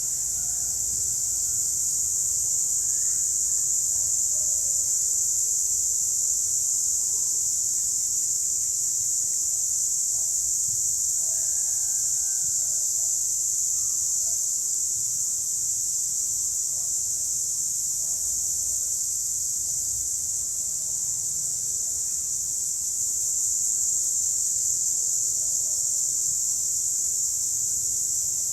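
A chorus of cicadas buzzing, one steady high-pitched drone that swells slightly a few seconds in and again near the end. Faint short chirps sound underneath.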